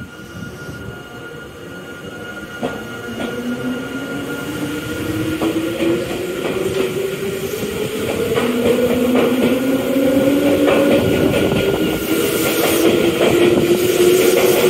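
Tobu Railway limited-express electric train pulling out of the platform. Its motor whine rises steadily in pitch as it gathers speed, with scattered clicks of wheels over rail joints, and it grows louder toward the end.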